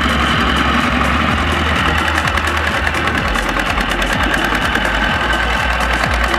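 Single-cylinder diesel engine of a two-wheel walking tractor running steadily with a fast knocking beat, under load as it pulls a trailer of rice sacks through mud.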